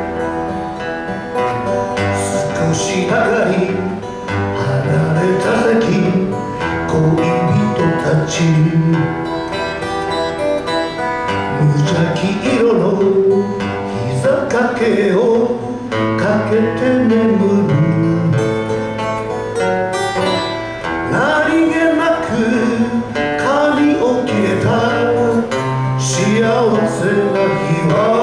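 Two acoustic guitars strummed and picked together, with a voice singing the melody over them.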